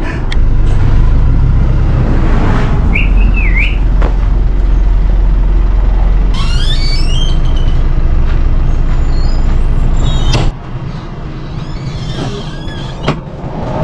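Heavy truck running close by with a loud, steady low rumble, broken twice by short high brake squeals. The rumble drops away suddenly about ten seconds in.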